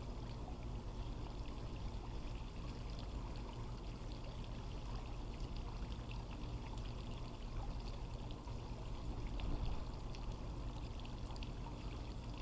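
Swimming-pool water trickling and splashing steadily, with small drip-like ticks and a low steady hum underneath.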